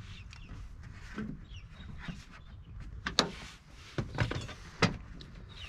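Door trim panel being pried loose from its retaining clips, with a few sharp clicks and knocks in the second half as the clips let go.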